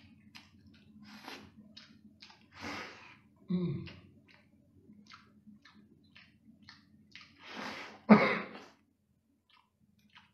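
Close-up eating sounds: wet chewing and sucking of crab meat with many small crackles from the shell being picked at by hand, and a louder sudden wet burst about eight seconds in.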